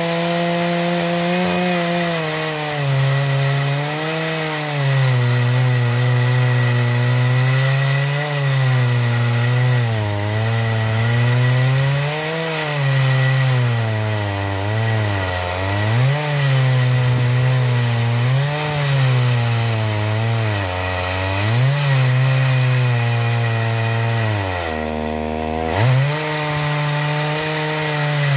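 Dolmar 120si 68cc two-stroke chainsaw on a 24-inch bar, run flat out while ripping a slab lengthwise through a log in an Alaskan chainsaw mill. The engine pitch rises and falls as it bogs under the cut and recovers. About 25 seconds in it drops sharply in pitch for about a second, then picks back up.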